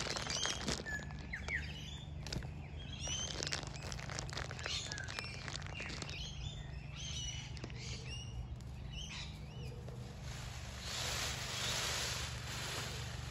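Small birds chirping and whistling in short repeated calls, with scattered rustles. About ten seconds in, a peacock shivers his fanned train, a dry rustling rattle of quills that swells twice.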